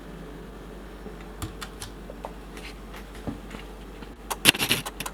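Sipping a thick meal-replacement drink through a straw: a few small mouth and lip clicks, then a short run of sucking and slurping near the end, over a low room hum.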